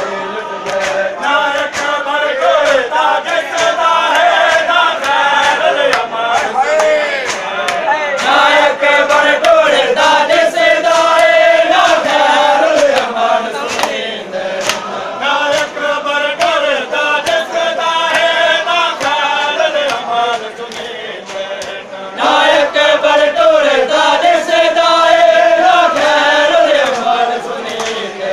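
Men chanting a noha, a Shia lament, together, over regular sharp slaps of hands on bare chests (matam). The chanting dips briefly twice, near the middle and about three-quarters of the way through.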